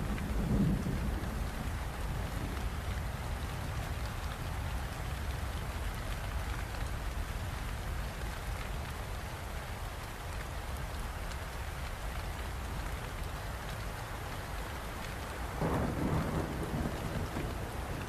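Steady rain falling, with a constant low rumble underneath. Near the end a louder low roll swells for about a second and a half, like distant thunder.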